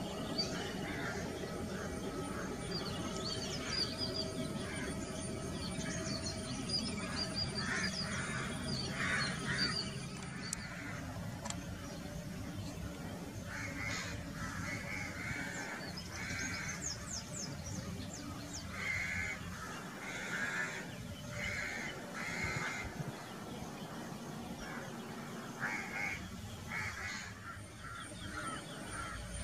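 Crows cawing repeatedly, with smaller birds chirping faintly, over a steady low rumble of distant jet engines.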